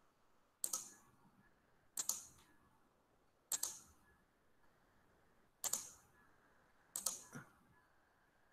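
Faint clicking at a computer: five quick double clicks spaced a second or two apart, the last with a third click.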